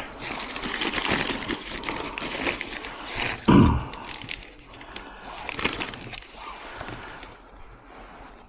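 Clicks, scrapes and knocks of hand work on a door lock, with one heavy thump about three and a half seconds in.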